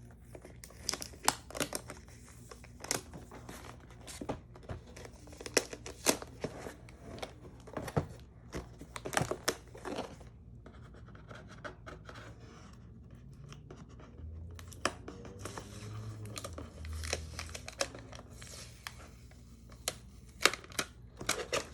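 A keyboard-and-mouse retail box being unboxed by hand: packaging torn open and rustled, with many scattered sharp clicks and scrapes as the box and its contents are handled.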